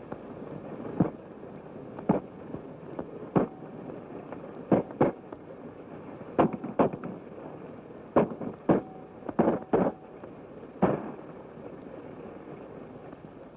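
Gunshots in a shootout: about a dozen sharp cracks at irregular intervals, some fired in quick pairs, ending about eleven seconds in. A steady hiss runs underneath.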